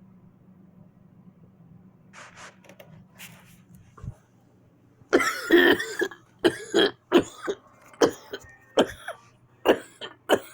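A person coughing: faint breaths at first, then about halfway one long cough followed by a run of about ten short coughs.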